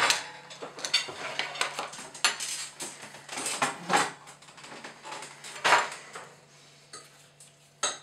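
Dishes and metal cutlery clattering in a series of sharp clinks and knocks, loudest about four seconds in and again just before six seconds, thinning out toward the end. A faint steady low hum runs underneath.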